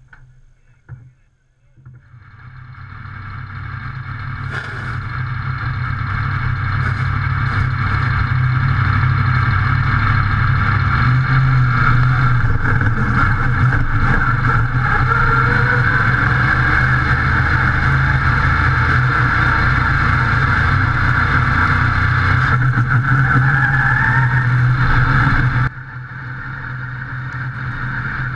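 Modified race car's engine heard from on board, pulling away from a standstill and building up over several seconds, then running loud and steady. Near the end it drops suddenly and then builds again.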